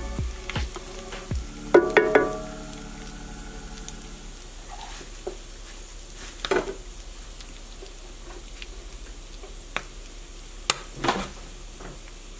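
Oil sizzling in a cast iron skillet, with tongs knocking against the pan, loudest in a quick cluster about two seconds in. A few single sharp clicks come later.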